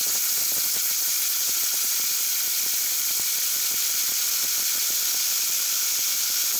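Compressed-air blow gun with a choked-down nozzle blowing a steady, loud hiss of air at an apple held in a palm, spinning the apple up.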